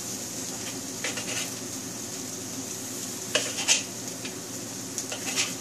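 Chicken and vegetables sizzling in oil in a wok over high gas heat, with a spatula scraping and clinking against the wok as they are stir-fried. The steady sizzle is broken by a few louder scrapes, strongest about three and a half seconds in.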